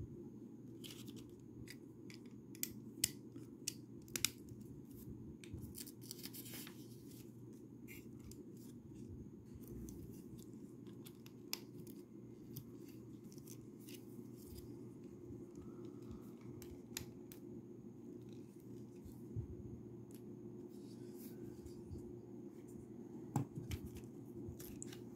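Lego bricks being handled and pressed together: irregular sharp plastic clicks and taps, thick in the first several seconds, then sparser, with a louder click near the end, over a steady low hum.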